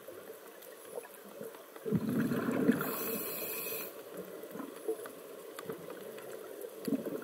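Scuba diver breathing through a regulator underwater: exhaled bubbles gurgle for about two seconds, starting about two seconds in, with a high hiss from the regulator near the end of the burst. Quieter underwater hiss fills the rest.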